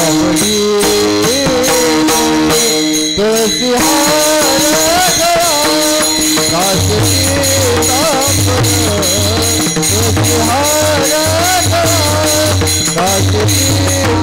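Warkari bhajan music: a male voice sings a chal melody over steady strokes of small hand cymbals (taal) and a drum. The singing line wavers in pitch and comes in about four seconds in.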